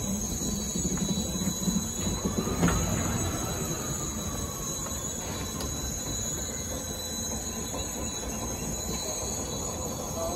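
Vintage subway car rolling slowly over the rails: a steady low rumble of wheels on track, a single clunk about two and a half seconds in, and a faint wheel squeal.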